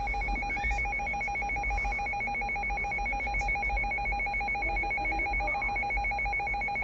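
Emergency weather alert alarm beeping: a rapidly pulsed electronic tone at two pitches, one mid and one high, sounding steadily. It is the alert signal ahead of a severe thunderstorm warning message.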